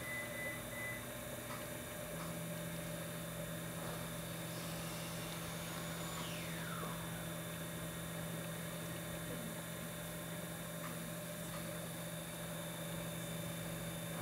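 Potter's wheel electric motor running with a steady hum, its low tone settling in about two seconds in.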